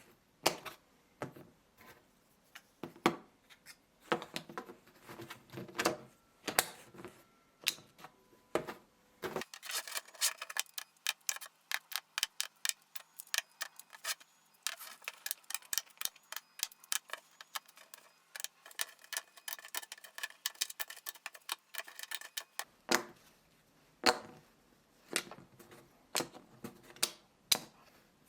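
Small 3D-printed plastic magnets clicking and tapping as they are handled and sorted, in short irregular clicks; from about ten seconds in until just past twenty the clicks come fast and crowded together.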